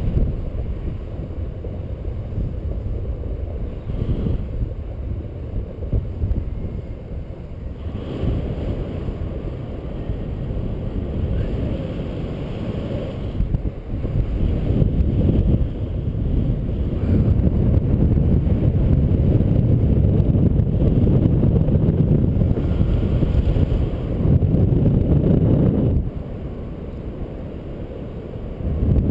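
Airflow buffeting the microphone of a camera on a paraglider in flight: a steady, gusty low rumble of wind that grows louder after about the middle and eases for a couple of seconds near the end.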